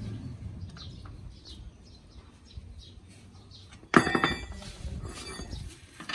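A single sharp metallic clank about four seconds in, ringing briefly as it fades: a steel hand tool striking the front wheel hub. Faint bird chirps in the background.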